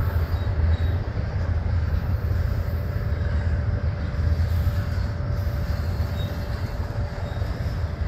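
Double-stack intermodal well cars of a freight train rolling past: a steady low rumble of steel wheels on the rails.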